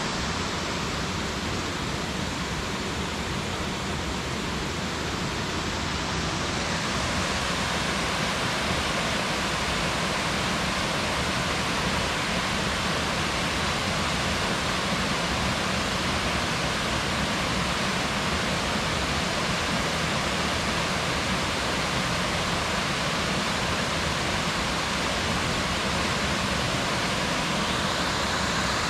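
Coal Creek Falls, a waterfall, giving a steady rush of falling water. The sound grows slightly louder after the first several seconds.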